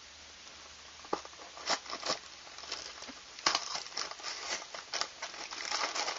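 Lego set box being opened by hand: sharp snaps and tearing of the cardboard, with the plastic bags of pieces inside crinkling. The loudest snap comes about three and a half seconds in.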